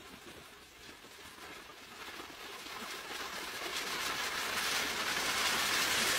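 Afterburning jet engine firing in a test cell: a broad rushing noise, strongest in the high end, that grows steadily louder from about two seconds in as the flame plume lights.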